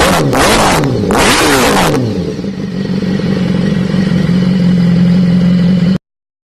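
BMW S1000RR inline-four engine through an SC-Project S1 titanium exhaust: two quick throttle blips in the first two seconds, then back to a steady idle. It stops suddenly about six seconds in.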